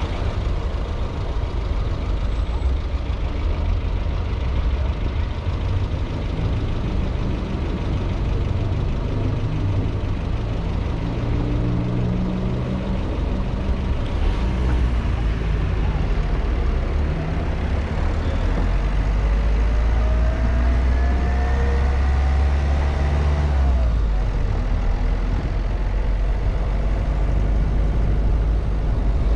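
Car driving through city streets: steady road and engine rumble, with a rising whine as it speeds up that breaks off sharply about four-fifths of the way through.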